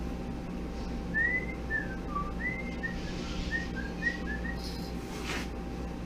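A person whistling a short tune of about ten quick notes, over a steady low hum.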